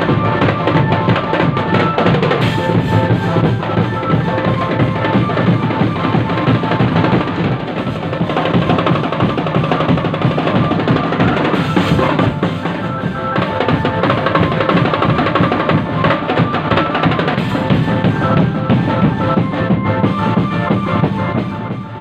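Indonesian marching drumband playing: a dense, continuous beat of snare and bass drums with drum rolls, and a melody line held over it.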